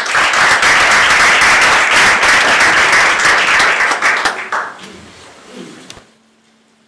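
Audience applauding, dense and steady for about four seconds, then thinning out and dying away about six seconds in.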